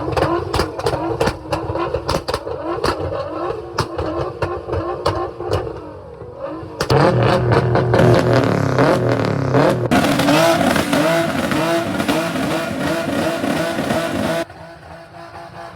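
Car engines revving, the pitch rising and falling, with abrupt changes in the sound about seven seconds in and again near the end.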